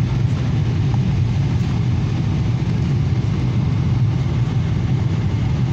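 Steady low rumble of an airliner's cabin in flight, the engine and airflow noise heard from inside the cabin at a window seat.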